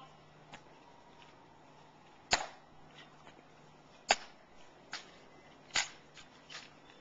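Sharp, isolated clicks of ceremonial guard drill: steel-tapped heels clicking and hands slapping the rifle. Three loud clicks come about a second and three-quarters apart, with fainter clicks between them.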